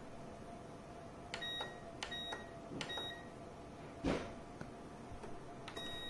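Honeywell HCE322V ceramic tower heater's control panel beeping as its buttons are pressed: three short high beeps in quick succession from about a second in, and a fourth near the end. The heater's fan runs steadily underneath, and a soft knock comes about four seconds in.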